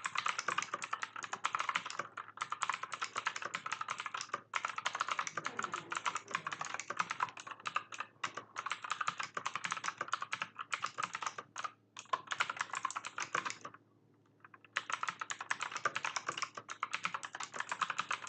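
Continuous typing on an AUKEY 88-key mechanical keyboard with Outemu Blue switches: a dense run of clicky keystrokes, quite loud, with a pause of about a second roughly fourteen seconds in.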